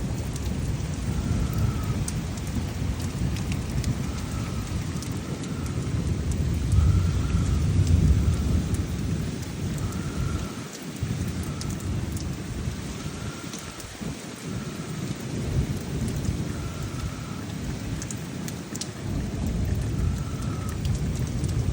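Thunderstorm: steady rain with rolling thunder, the rumble loudest about seven or eight seconds in and easing off in the second half. A short high note repeats every second or two over it.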